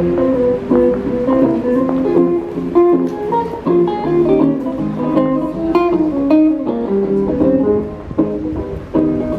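Guitar music: a guitar playing a quick run of plucked notes.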